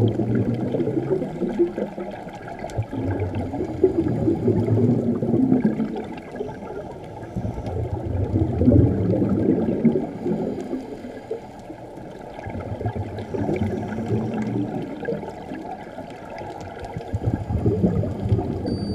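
Scuba regulator bubbles from a diver's exhalations, heard underwater: a low gurgling rumble that swells and fades about every four seconds, five times.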